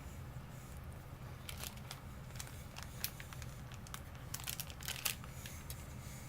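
Plastic snack-stick packaging crinkling and rustling, in a string of short crackles, with two sharper snaps about three and five seconds in.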